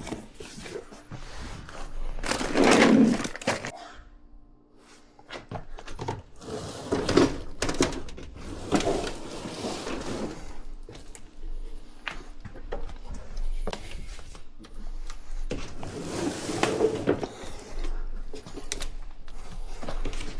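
Irregular knocks, thunks and clattering of hands-on installation work on a dishwasher, with several louder bangs spread through and a brief lull about four seconds in.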